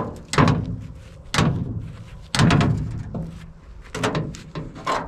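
Hollow metal knocks and thumps from the excavator's grilled sheet-metal engine-compartment side door being swung shut against its frame. The loudest knock comes about two and a half seconds in.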